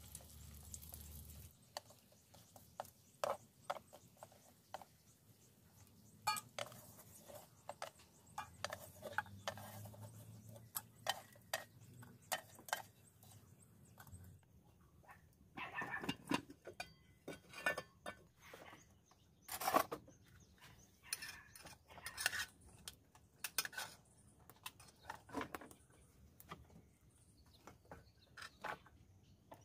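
Kitchen utensils on cookware: wooden chopsticks clicking and scraping on a steel wok and pot as fried fish is lifted out, then, after a cut about 14 s in, louder knocks and scrapes of a spoon scooping cooked rice from an aluminium pot into a bowl, with one loud knock near the middle.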